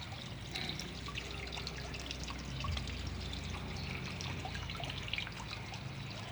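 Water trickling and dripping from a small homemade garden waterfall into a fish pond, many small drips and splashes over a steady low hum.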